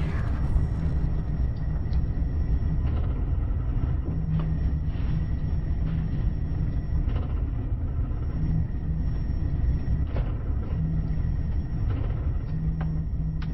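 Steady deep rumble with faint scattered ticks and clicks over it.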